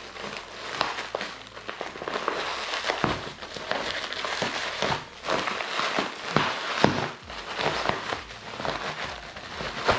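Clear plastic air-cushion wrap and bubble wrap crinkling and crackling as a parcel is handled and unwrapped, with many sharp crackles.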